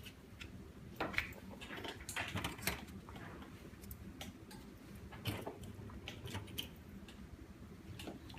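Light, irregular clicks, taps and short rubbing strokes of hand work on an LCD panel, as leftover glue is cleaned off with a cleaning liquid.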